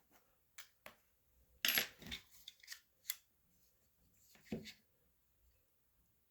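Parts of a paintball marker being handled and set down on a work surface: a series of light clicks and knocks, the loudest about two seconds in and another near the middle.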